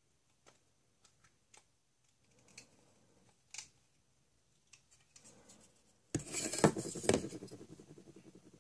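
Small hard plastic toy parts being handled: a few light clicks and soft rubbing as a plastic toy capsule is worked open. About six seconds in comes a sudden loud plastic clatter, a quick run of ticks that slowly dies away.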